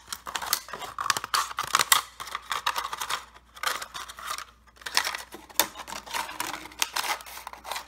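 Scissors cutting through the side of a thin plastic water bottle: a quick, irregular run of clicking snips with the crackle of the plastic, pausing briefly a few times.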